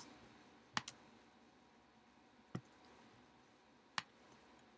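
A few isolated sharp clicks of a computer mouse, a second or more apart, one of them a quick double click, over quiet room noise.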